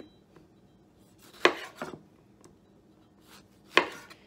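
Chef's knife cutting through tomatoes and knocking on a wooden cutting board: two sharp knocks, about a second and a half in and near the end, with a few light clicks between.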